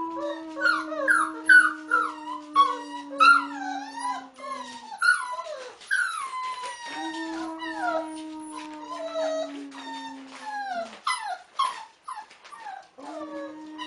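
A man howls long, low notes, two of about four to five seconds each and a third starting near the end. A wolf pup joins in with high, wavering howls and short yips that rise and fall over his notes.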